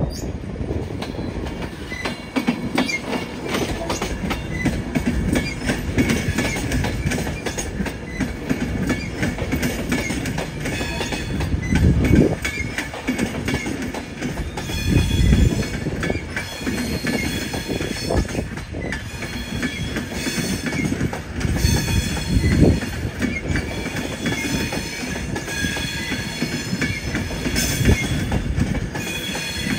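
A train passing, its wheels clattering with heavy thuds every few seconds. A high wheel squeal runs alongside and grows stronger in the second half.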